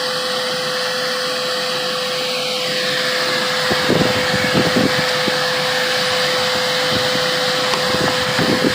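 Bissell Lift-Off upright vacuum cleaner running with a steady whine over its motor hiss. Short rattles come in about halfway through and again near the end.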